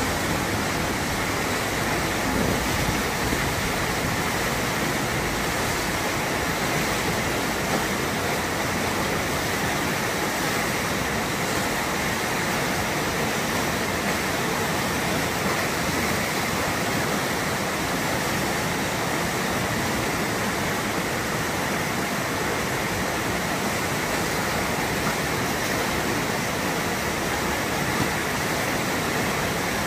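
Fast river water rushing and churning through a standing wave: a loud, steady, unbroken rush of whitewater.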